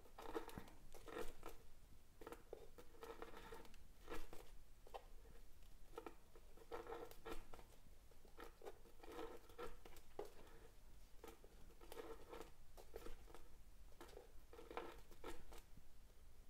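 Waxed polyester macramé cords rustling and rubbing through the fingers as small knots are tied and pulled tight, in faint, irregular short bursts.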